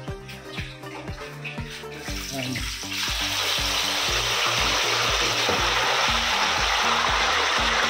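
Background music at first; about three seconds in, French fries in a wire basket start sizzling in the hot oil of an electric deep fryer, a loud steady hiss that carries on under the music.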